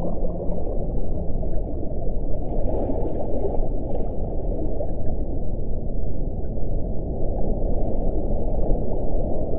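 Underwater recording of whale sounds: a low, held whale call fades out about half a second in. Then comes a steady, dense low underwater rush with a few faint clicks.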